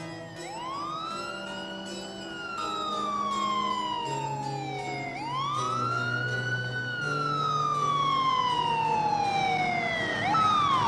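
Ambulance siren wailing: each sweep rises quickly, holds, then slides slowly down over a few seconds. Two full cycles play, and a third starts rising near the end, over low steady tones underneath.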